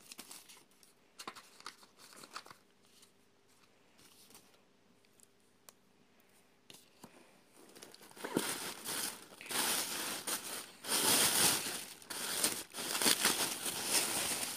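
Paper wrapping being handled and torn open by hand. There are a few soft rustles at first, then from about halfway loud, continuous crinkling and tearing in bursts.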